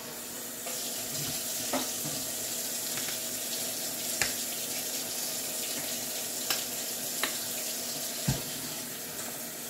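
Water running steadily from a tap into a sink, with a few light knocks of things being handled.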